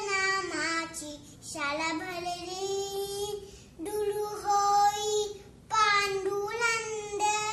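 A young girl singing solo, unaccompanied, in phrases of a second or two with held notes and short pauses between the lines.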